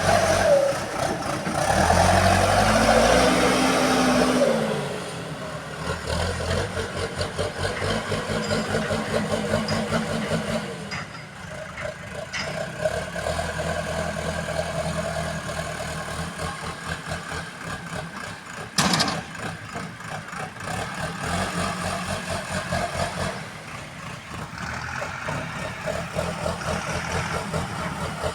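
BULL HD 76 backhoe loader's diesel engine running: it revs up and back down near the start, then settles into a steady pulsing run. There is one sharp clank about two-thirds of the way through.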